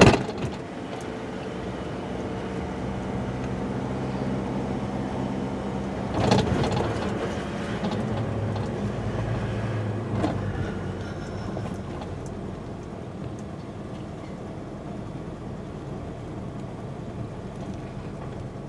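Car engine and tyre noise heard from inside the cabin while driving, a steady hum, with a sharp knock at the very start and another about six seconds in. The hum drops and grows quieter after about ten seconds as the car slows.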